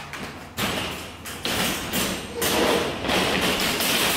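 Black metal wire dog-crate panels clanking and rattling against each other as one is pulled free of the folded stack and lifted, in several sudden bouts of clatter.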